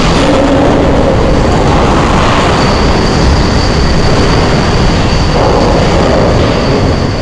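Rotary railcar dumper rolling a loaded coal car over: a loud, steady rumble of the turning machinery and coal pouring out into the hopper pit. A thin, high squeal comes in a few seconds in and holds until near the end.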